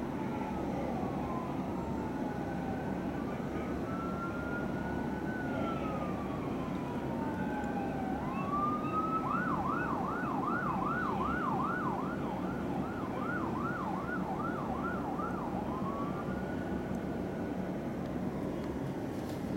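Fire engine siren sounding a slow rising-and-falling wail, switching about nine seconds in to a fast yelp for around six seconds, then back to the wail. A steady rumble of city traffic runs underneath.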